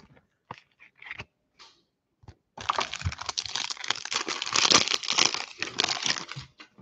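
A few light clicks and taps, then, from about two and a half seconds in, a 2020 Panini Select football card pack's foil wrapper being torn open and crinkled by hand, a steady crackling rustle of about four seconds.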